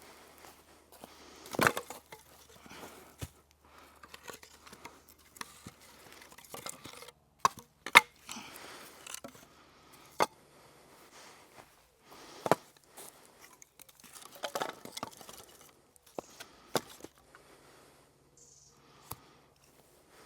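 Dry sticks and wood being handled and snapped: irregular sharp cracks, a handful of them loud, with rustling between.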